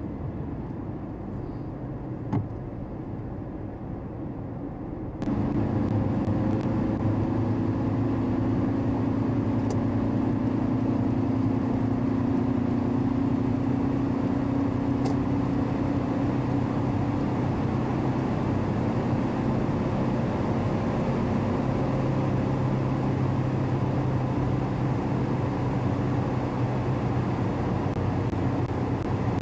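Car engine and tyre noise heard from inside the cabin while driving, a steady low hum. It jumps abruptly louder about five seconds in, at open-road speed.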